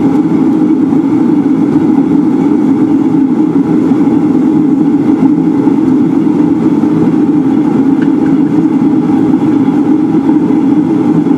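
Steady, loud machine drone running without a break.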